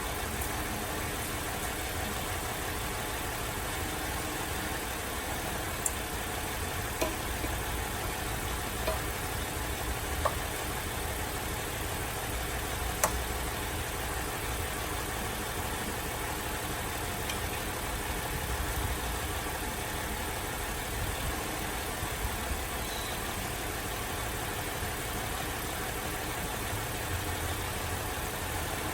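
Holden VZ Adventra's Alloytec V6 idling roughly with a misfire, with a few sharp clicks over the steady running.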